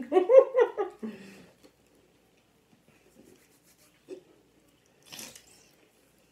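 A person's voice making drawn-out 'mmm' sounds with rising and falling pitch for about a second. Then faint chewing, with a short rustle about five seconds in.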